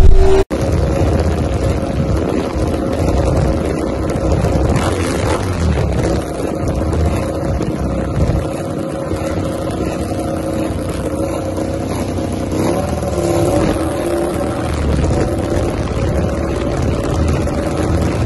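MotoGP race bike's engine idling through its open race exhaust, recorded right at the exhaust outlet: a steady, loud note that lifts briefly about two-thirds of the way through. It opens with the last half-second of a bike passing at speed, cut off abruptly.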